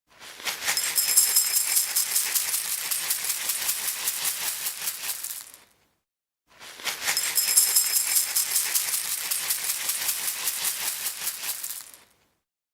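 Small hard objects rattling as they are shaken rapidly, like a maraca, with a faint metallic ring. It plays as two runs of about five seconds each, separated by a short silence.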